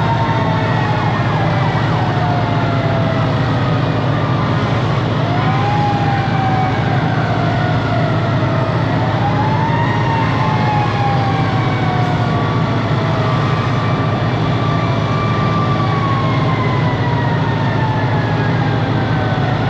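Several fire-truck sirens wailing at once and out of step, each winding up and then slowly falling in pitch. Underneath runs the steady low drone of the truck's Detroit Diesel 8V71 engine.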